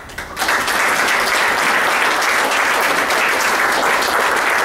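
Audience applauding steadily, building up about half a second in.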